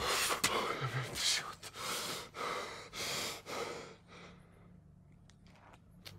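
A man breathing hard in ragged, gasping breaths, about one a second, with a brief voiced catch about a second in. The breathing dies away about four seconds in, leaving only a few faint clicks.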